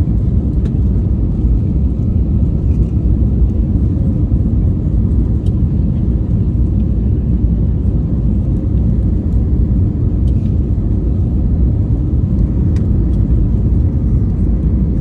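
Steady low rumble of jet engines and rushing air heard inside an airliner cabin on final approach, with a few faint clicks over it.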